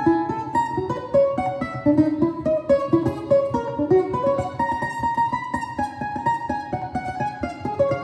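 Ten-string bandolim and cello playing a duet: the bandolim picks a quick line of notes while the cello bows a lower part.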